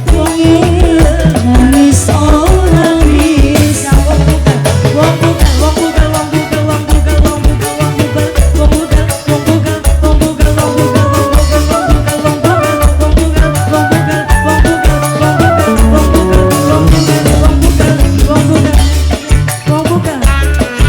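Loud dangdut band music: a steady, heavy drum beat with wavering melody lines over it.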